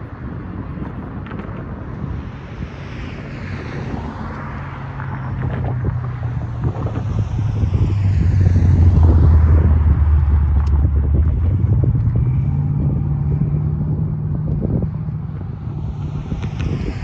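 Low engine drone that swells to its loudest about halfway through and then slowly fades.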